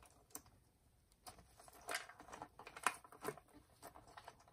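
Light clicks and rustling of plastic wiring connectors being pulled apart by gloved hands at the stock controller of a Jetson Bolt Pro e-bike, with a few sharper clicks around the middle.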